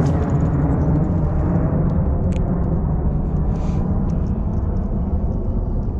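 Low, loud rumble of a large plane flying over, easing off slowly, with a few faint clicks on top.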